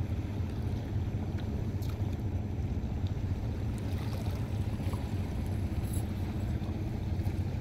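Steady low rumble on the water around a small wooden boat, with a few faint light clicks as a cast net is gathered up for throwing.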